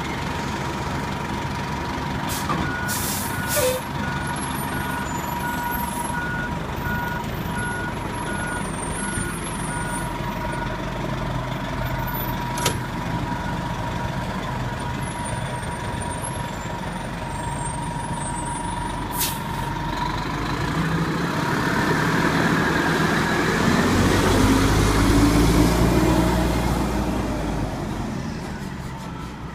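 Fire engine idling, its reversing alarm beeping steadily for several seconds, with a few short sharp air-brake hisses. Later the engine revs up and the truck drives off, the sound growing louder and then fading away.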